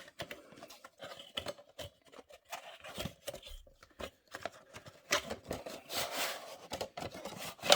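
Packaging of a small model being opened by hand: a string of clicks, scrapes and rustles, busiest a little past the middle.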